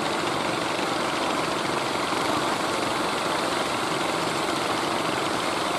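Outrigger fishing boat's engine running steadily, mixed with the wash of surf.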